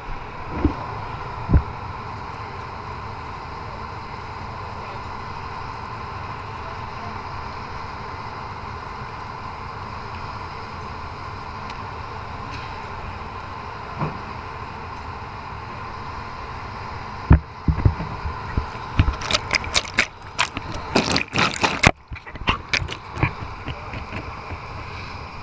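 Steady underwater hiss with a faint whine, then, about seventeen seconds in, a scuba diver's exhaled bubbles crackling and gurgling for several seconds.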